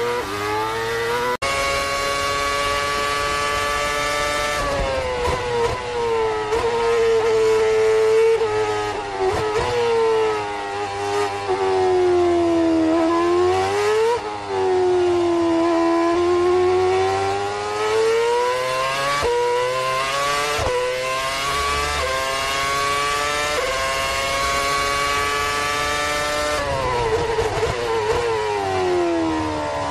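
Formula 1 V8 engine running at racing revs. Its pitch climbs and falls again and again, with quick steps at gear changes and two deep dips, about fourteen seconds in and near the end, where it slows and then picks up again.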